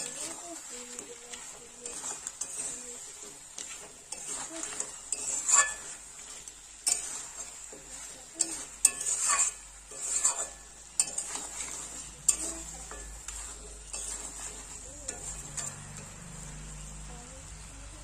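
A metal spatula scrapes and stirs crab and potato pieces in a kadai, in irregular strokes over sizzling oil and spices. This is the frying-down (kosha) stage of a crab and potato curry. A low steady hum comes in near the end.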